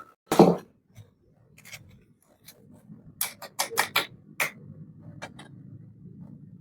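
Small plastic toy pieces being handled and set down: one solid knock about half a second in, then a quick run of sharp clicks and taps between about three and four and a half seconds.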